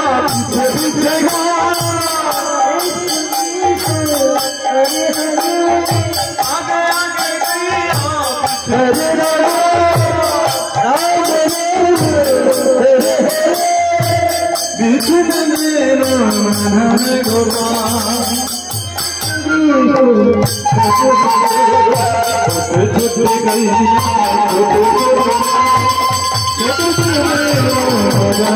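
Bengali devotional kirtan music: a melody over drum and jangling percussion that keep a steady, even beat. The tune briefly drops off just before the 20-second mark and comes back with longer held notes.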